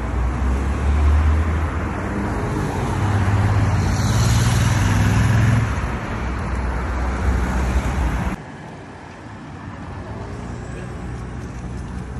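City road traffic passing close by: car and motorcycle engines running past with tyre noise, swelling as vehicles go by. About two-thirds of the way in it cuts off abruptly to a quieter, steady hum of more distant traffic.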